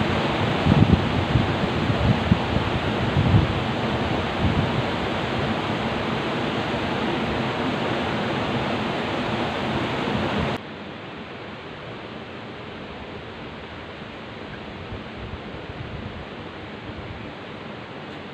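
Steady rushing hiss of a rocky river, with wind buffeting the microphone in low gusts during the first few seconds. About ten seconds in it drops suddenly to a quieter, even hiss.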